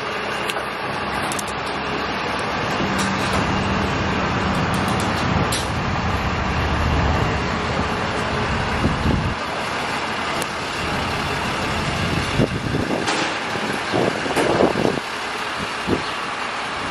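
Steady vehicle noise with a low rumble that fades about nine seconds in, and a few short knocks near the end.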